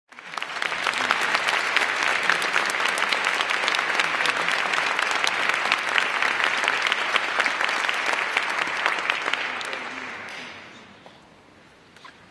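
Audience applauding: dense clapping from many hands that dies away about ten seconds in.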